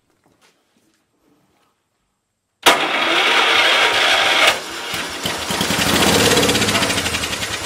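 Kohler Magnum M12 single-cylinder engine cranked straight off the battery by the starter, catching suddenly about two and a half seconds in and running on carb cleaner in the cylinder with a rapid even firing beat. The engine is loudest for its first two seconds, dips, then runs on and slowly fades near the end as the cleaner burns off. This shows the engine has spark and will run.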